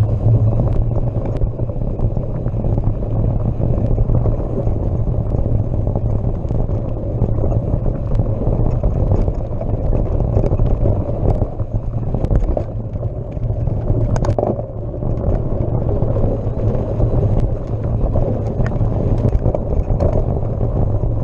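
Wind and trail rumble on the camera of a mountain bike ridden along a dirt singletrack: a steady low rumble, with frequent small clicks and rattles from the bike over bumps and a sharper knock about fourteen seconds in.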